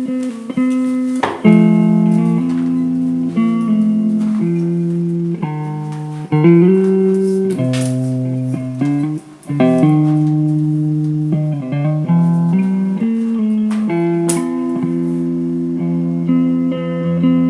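Background music played on guitar: plucked notes and chords that change every second or so.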